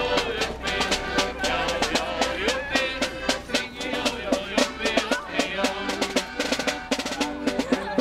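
A street band playing a lively tune, with drums beating a quick, steady rhythm under an accordion melody.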